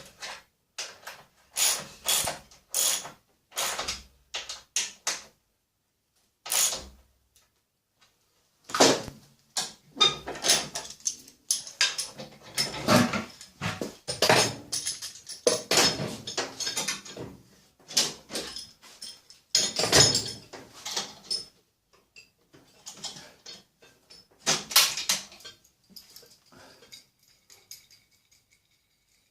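Irregular clicks, clanks and rattles of hand tools and metal fence hardware being handled, in clusters with short pauses.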